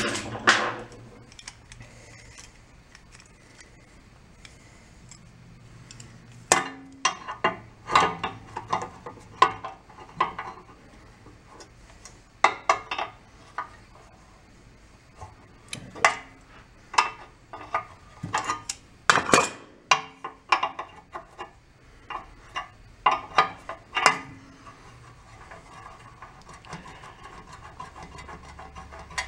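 Wrench clicking and clinking against the metal fittings of a 1937 Sears Waterwitch outboard's carburetor and fuel lines as they are loosened, in scattered clusters with quiet pauses between; the loudest clink comes a little past the middle.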